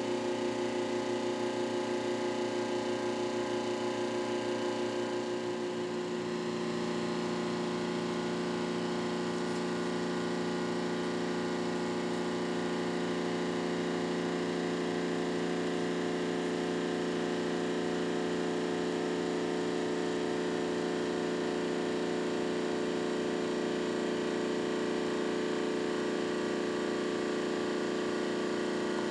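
1978 OOYA RE2-1300A radial arm drill press running smoothly: a steady hum of its electric motor and gearing, with several held tones that shift slightly about six seconds in.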